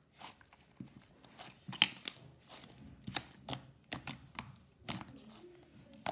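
Thick, fluffy white slime being squeezed and kneaded by hand, making an irregular run of sticky clicks and pops, the sharpest about two seconds in.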